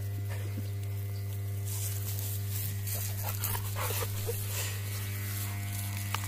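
A steady low electric hum runs under water hissing from a garden hose. Short noises from an American bulldog playing in the spray come between about two and four and a half seconds in.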